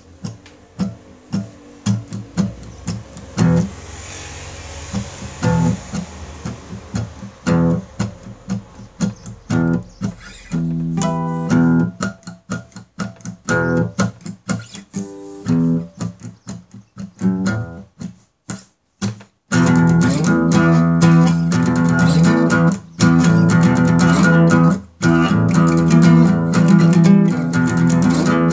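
Guitar music: single plucked notes at first, growing busier about ten seconds in, then a louder, fuller guitar-and-bass passage from about twenty seconds in, broken by a couple of brief stops.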